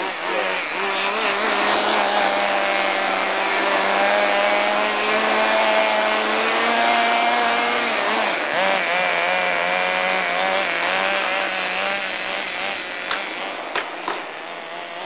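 Radio-controlled truck's motor running, its pitch rising and falling with the throttle, with a few short clicks near the end.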